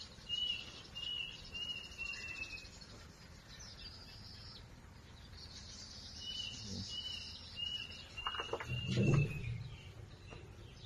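A bird chirping a run of short, evenly spaced calls, about two a second, in two bursts, over a faint high insect-like hiss. A dull low thump about nine seconds in is the loudest sound.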